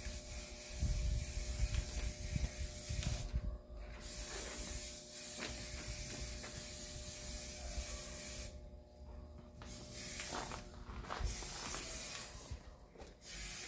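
Aerosol spray-paint can spraying in long hissing bursts, stopping and starting four times, with some low rumbling in the first few seconds. The painters call this can defective.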